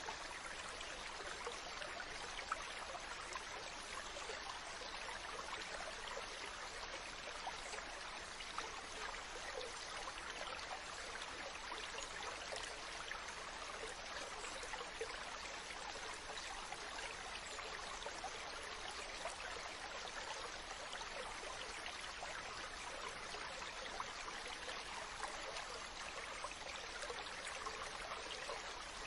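Running water of a stream, flowing steadily: a continuous, even rush with no breaks.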